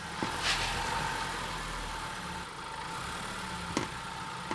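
Changan Uni-K engine running, heard through a microphone clipped to the engine skid plate as the car moves off, with a few sharp metallic knocks: near the start and again near the end. The knock is the aftermarket skid plate, fitted under tension and jammed against a bolt and a body bracket, which the mechanic presumes is striking as the engine and subframe shift.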